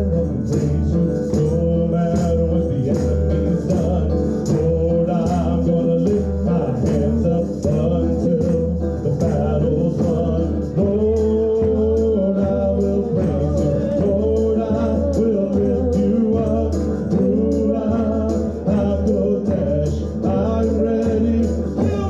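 Live music: a woman singing over a steady beat struck on a handheld frame drum with a beater, with guitar accompaniment.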